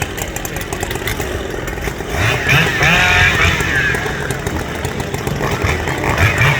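Racing hot saw engine running loud and hard, getting louder about two seconds in.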